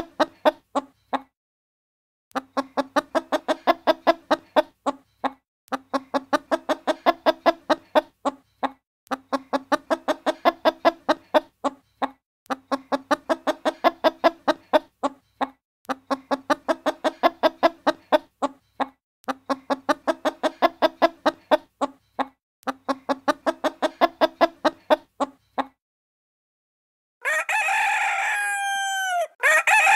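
Hen clucking in fast runs of clucks, each about three seconds long with short breaks between them, then near the end a rooster crowing twice.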